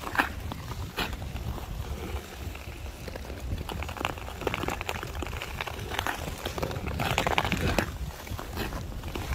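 Ice skate blades scraping and gliding on outdoor ice in repeated strides, each stride a short hissing scrape, with a steady wind rumble on the microphone.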